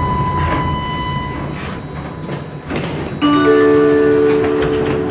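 Tram rumbling as it slows into a stop, a steady whine fading out early on. About three seconds in, a loud electronic chime of several held tones sounds on board for about two seconds.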